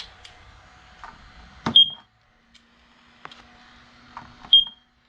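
Smoke alarm set off with aerosol smoke test spray, giving two short high-pitched beeps about three seconds apart, with a few faint clicks between them.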